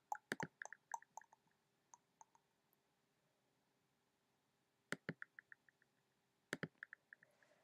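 Faint computer mouse clicking in three quick runs: at the start, about five seconds in, and near the end, each a sharp click followed by several lighter, fading ones.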